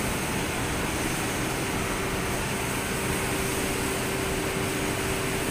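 Steady factory machinery noise: an even rushing hum with a constant mid-pitched tone running through it, unchanging throughout.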